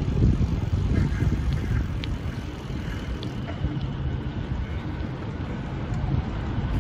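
Wind rumbling and buffeting on the microphone of a bicycle-mounted camera while riding, over the low hum of road traffic, with a few faint ticks.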